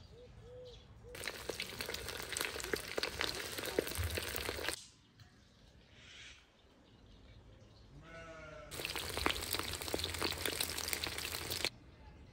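Skewered lyulya kebabs deep-frying in hot oil in a cast-iron cauldron: two spells of loud crackling sizzle with a quieter gap between them. A short animal call is heard in the gap, about eight seconds in.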